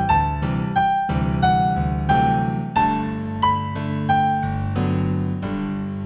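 Gentle new-age piano instrumental in G major: a slow melody of single struck notes over sustained low chords, the final notes dying away near the end.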